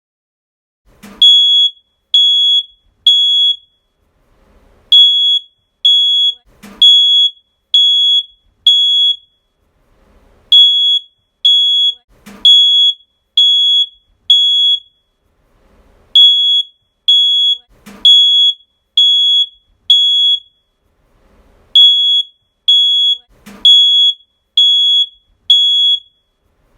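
Smoke alarm sounding: a loud, high-pitched beep repeated about once a second in runs of five, with a short pause between runs.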